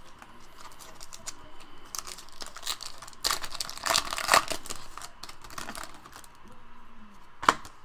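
Trading cards and their packaging being handled: irregular crinkling and light tapping, busiest about four seconds in, with one sharp click near the end.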